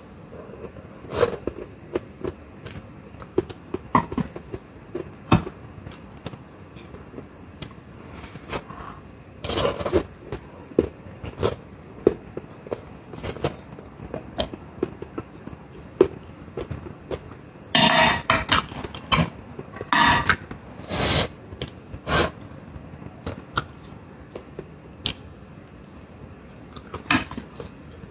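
Close-up eating sounds: chewing of soft cooked vegetables, with a metal fork clicking and scraping on the plate. A louder run of chewing and mouth noises comes about two-thirds of the way through.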